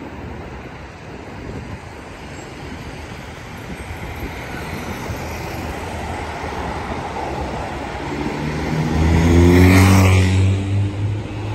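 Cars of a convoy driving past on a road, tyre and engine noise building to a close pass about nine to ten seconds in, the engine note dropping in pitch as that vehicle goes by.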